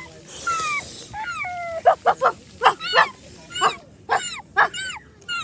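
A dog barking in short, high-pitched yips, about ten in an uneven run.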